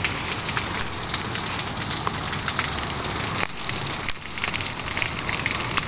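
Heavy rain falling, a dense, even spatter broken by many sharp drop hits.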